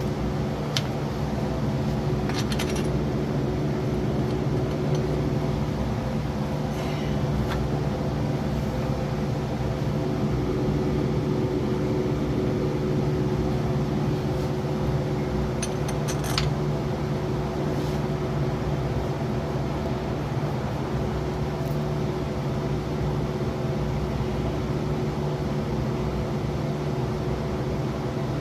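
A steady mechanical hum runs throughout, with a few light metallic clinks of hand tools and bolts as the water pump is fitted, the sharpest about a second in, near two and a half seconds, and around sixteen seconds.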